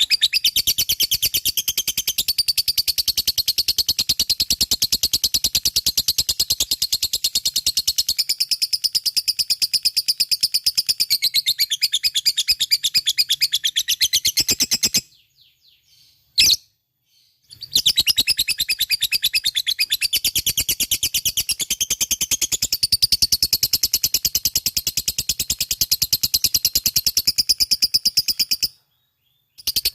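Lovebird in a long 'ngekek' song: a fast, unbroken run of high chattering chirps. It stops for about two and a half seconds just past the middle, with a single short chirp in the gap, and stops again for about a second near the end.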